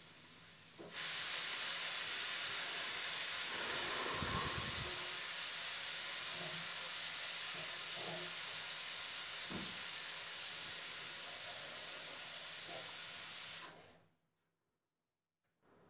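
A steady, even hiss that starts about a second in and cuts off sharply near the end, with a few faint low thuds under it.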